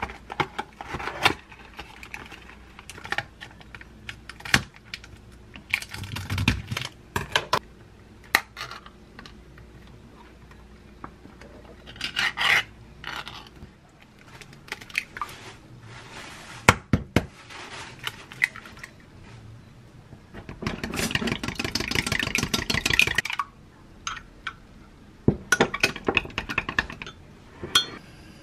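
Kitchen food-prep handling sounds: packaging rustled and opened, sharp taps and knocks as eggs are cracked over a glass cup, and a few seconds of fast, even strokes against the glass that fit eggs being beaten.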